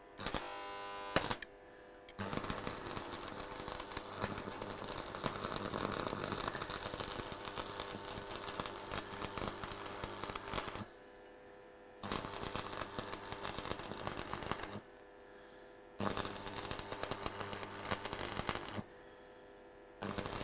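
Stick (electrode) arc welding: the arc crackles and sizzles steadily as a bead is run around a broken steel disc-harrow part. A short burst comes first, then a long run of about eight seconds, then three shorter runs with pauses of about a second between them.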